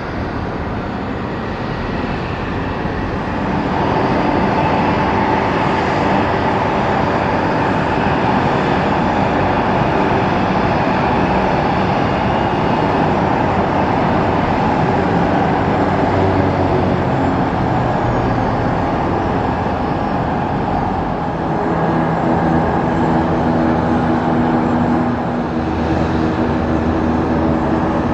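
Two rear-mounted turbofan engines of a taxiing Brazilian Air Force Embraer jet, a steady jet whine that grows louder a few seconds in. Near the end a lower steady hum joins it.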